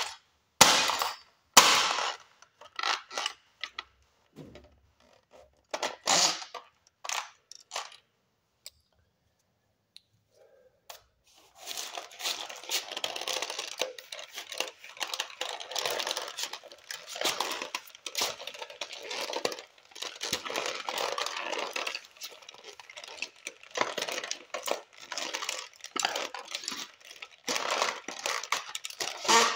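A bare foot stomping on a toy Chevrolet Camaro model car, a run of sharp cracks as its plastic and metal body gives way over the first several seconds. After a short pause, a long stretch of dense crackling and clattering.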